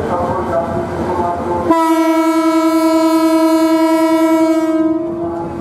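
Diesel locomotive horn sounding one long, steady single-note blast of about three seconds, starting a little under two seconds in.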